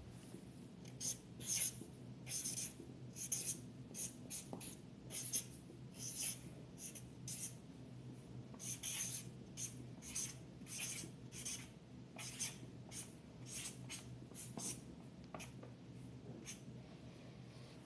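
Writing by hand: a run of short, irregular scratchy strokes, one to three a second, over a faint steady hum.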